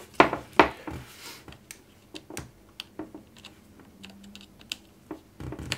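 Small clicks and taps of hands handling a racing quadcopter frame and pushing a USB cable into its flight controller: two louder knocks at the start, then a run of light clicks.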